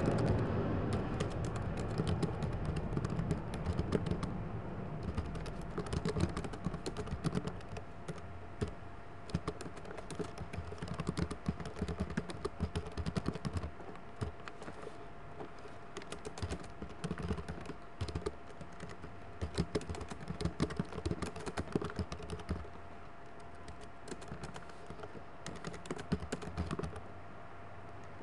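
Typing on a computer keyboard: irregular runs of keystrokes with short pauses between words and phrases. A louder low background sound fades out over the first few seconds, and a faint steady tone runs underneath.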